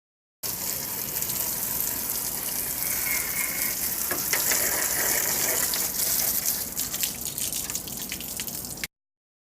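Water from a hose spraying hard onto a window air conditioner's front grille during cleaning: a steady rushing hiss that starts about half a second in, turns uneven near the end, and cuts off abruptly.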